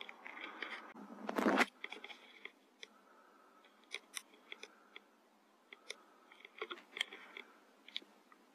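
Rats squeaking in short high notes among scattered small clicks. A brief loud burst of noise comes about a second and a half in.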